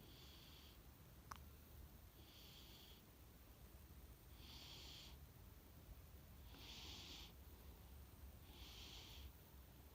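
A sleeping cat snoring faintly: five soft, hissy breaths about two seconds apart, in a slow, even rhythm. A brief faint click about a second in.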